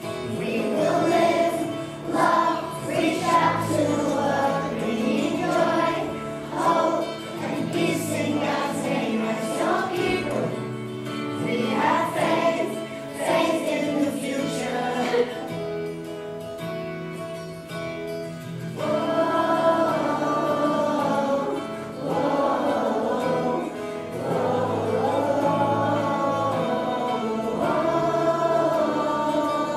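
A class of primary-school children singing a praise song together as a choir, with musical accompaniment, fuller and more sustained in the last third.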